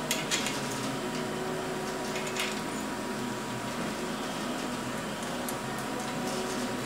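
Steady hiss of compressed air bleeding out of the pressurized air bearings in an SKF bearing housing being retrofitted. A few light metallic clicks come near the start and again about two seconds in as the top bearing cap is fitted.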